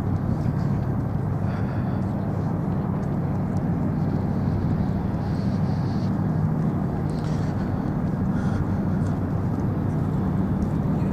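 Steady low outdoor rumble with a constant hum underneath, no distinct events.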